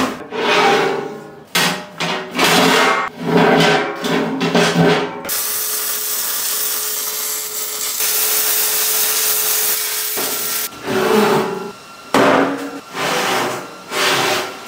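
Steel plates handled and scraped on a steel welding table in irregular bursts. Then, about five seconds in, a MIG welding arc hisses and crackles steadily for about five seconds as the plates are tack-welded, before the handling sounds return.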